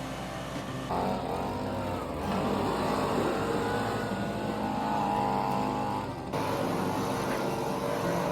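Engine of a firewood splitter running steadily. From about a second in, a higher whine rises and falls over it, then cuts off suddenly near the end.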